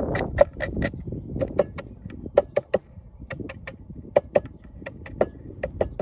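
A cleaver chopping on a round wooden cutting board while slicing vegetables, each stroke a sharp knock. The knocks come about five a second at first, then in quick runs of three or four with short pauses between.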